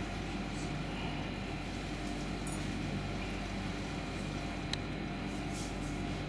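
Steady low drone of a river cruise ship's engines, with one light metal click about three-quarters of the way through as a stainless steel stockpot is tipped over a strainer.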